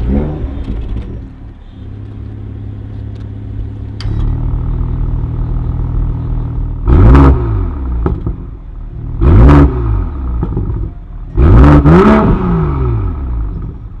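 BMW M440i xDrive's 3.0-litre turbocharged straight-six starting with a loud flare and settling to idle, heard at the tailpipes. It then gives three short throttle blips, the last one longer.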